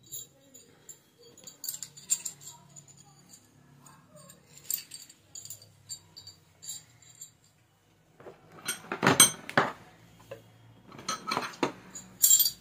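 Steel SDS hammer drill bits clinking and clicking against each other as they are handled. From about nine seconds in, louder clattering and handling noise as the chisels are lifted out of the plastic carry case.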